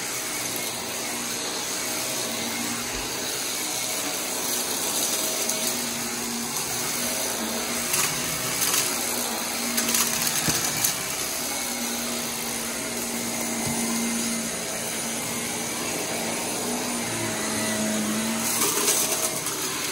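Corded stick vacuum running steadily while pushed over carpet, a constant motor hum with the suction rush. A few brief clicks and rattles from the head, the loudest near the end.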